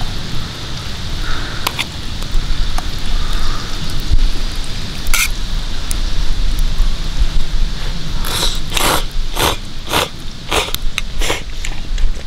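Campfire crackling with a few sharp pops. From about eight seconds in comes a quick run of short slurps, about two a second, as ramen noodles are eaten.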